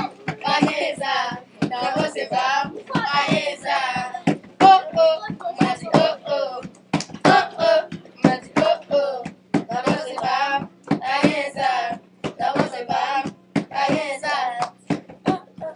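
Group of children singing together in short, rhythmic sung phrases.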